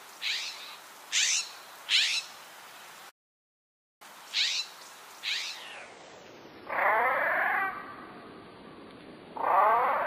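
California scrub jay calls from a field recording: three short calls at normal speed, a brief gap, two more, then two calls slowed down in playback, each drawn out to about a second and much lower in pitch.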